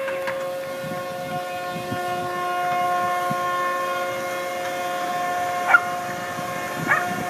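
Several ship horns sounding long, steady blasts together at different pitches, the customary salute as a new ship slides down the slipway into the water. Two brief sharp cries cut through near the end.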